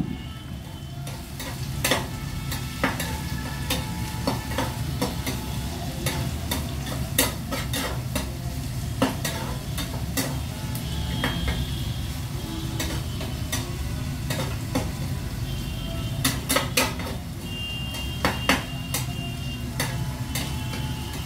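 Steel spatula stirring and scraping an onion, tomato and green-chilli mixture in a small stainless steel pan, making irregular sharp metal-on-metal clinks over a light sizzle of frying.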